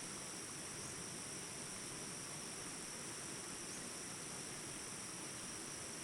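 Mountain river rushing steadily over rocks, with a constant high-pitched insect drone above it.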